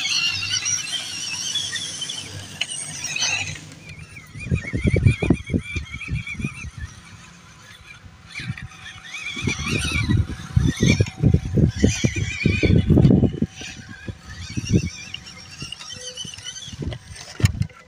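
Small electric motors and gearboxes of scale RC crawler trucks whining, the pitch wavering up and down as the throttle changes. This is mixed with bursts of low, rough rumbling, loudest about four to six seconds in and again from about ten to thirteen seconds in.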